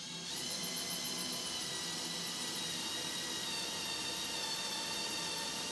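Cordless drill running steadily with a small bit, drilling a pilot hole through drywall into a wooden stud. The motor whine sags slightly in pitch about halfway through.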